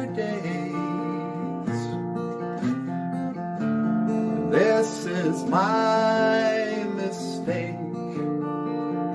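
Music: a strummed acoustic guitar with a lead melody over it that slides up and down in pitch.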